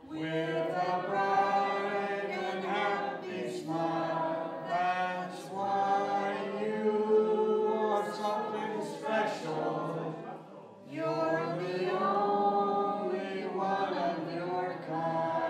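Voices singing together in long held notes, with a short break between phrases about ten and a half seconds in.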